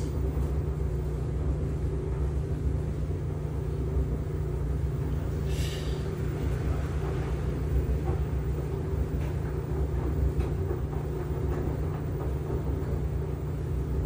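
LG washing machine running mid-cycle: a steady low rumble.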